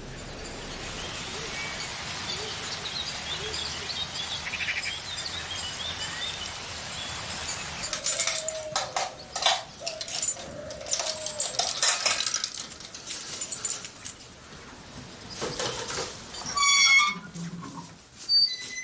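A padlock and chain on an iron-barred gate clink and rattle as they are unlocked. Near the end the gate gives a loud high squeak as it swings open.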